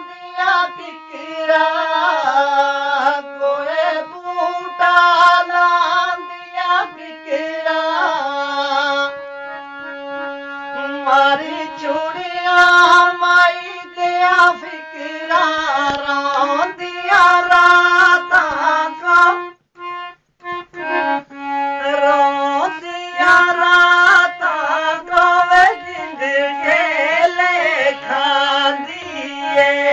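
Hand-pumped harmonium playing a melody with held chords under a voice singing a Pahadi folk song. There is a brief break about two-thirds of the way through.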